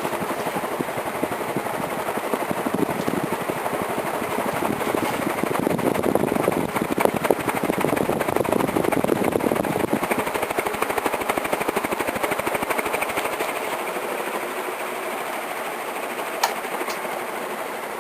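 Patton 56-inch industrial ceiling fan running, its moving air giving a steady rush with a rapid fine flutter, loudest midway and easing slightly toward the end. A single sharp tick sounds near the end.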